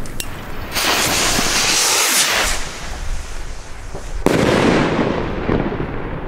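Aerial firework shot: a loud hiss lasting under two seconds, then about four seconds in a sharp bang as the shell bursts into stars, echoing away.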